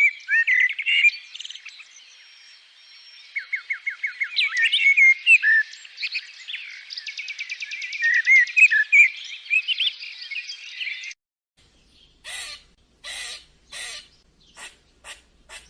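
Several songbirds singing and chirping at once, with rapid trills and gliding notes. About eleven seconds in the birdsong cuts off suddenly, and a series of about six short, rough noisy bursts follows.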